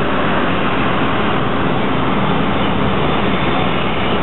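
Steady rush of road and wind noise heard from inside a moving vehicle, with no separate events standing out.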